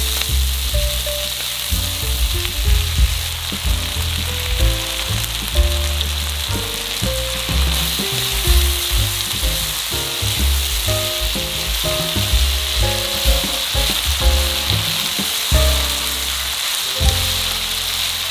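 Sliced peppers, onion and fried pork strips sizzling in an oiled wok over high heat as they are tossed with a wooden spatula, a steady crackling hiss throughout. Background music with a bass line plays underneath.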